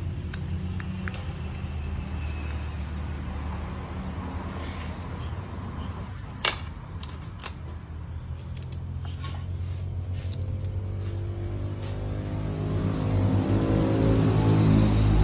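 Car engine idling steadily, its speed climbing over the last few seconds, while its idle speed control valve is being tested. A sharp click about six and a half seconds in.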